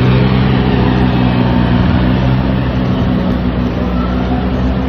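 Ride-on floor scrubber running on wet marble paving: a steady low motor hum over a broad hiss of water and brushes.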